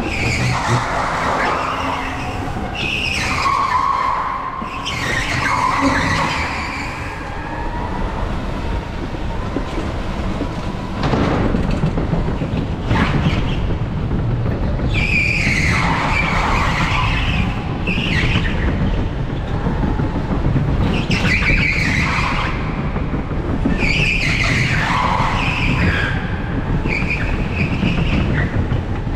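Electric go-kart squealing its tyres through corners in several spells, over a steady low rumble of the kart running on tarmac.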